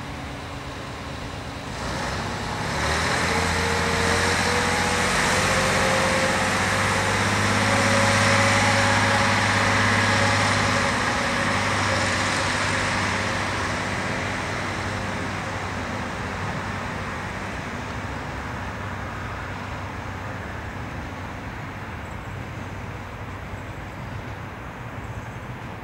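VT 627 single-car diesel railcar pulling away: its diesel engine opens up about two seconds in, with a slowly rising whine over a deep engine note. The sound then fades gradually as the railcar draws away.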